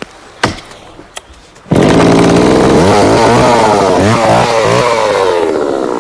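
A couple of sharp chopping knocks, an axe biting into the tree's roots. Then about two seconds in a two-stroke chainsaw cuts in loud and runs on, its pitch rising and falling as the tip bites down at an angle into the ash tree's roots.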